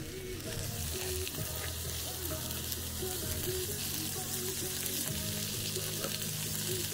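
Meat sizzling and spitting on a park barbecue hotplate, a steady crackling hiss.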